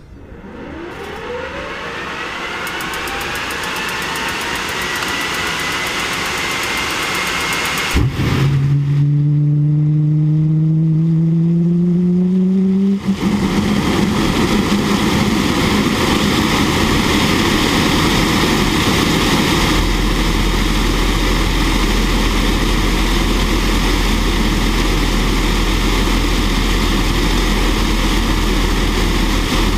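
Fairchild J44 turbojet engine starting up: a whine that rises in pitch and levels off as the engine spools up, a sharp pop about eight seconds in, then a low hum that climbs slowly in pitch. About thirteen seconds in it settles into a steady, loud jet roar.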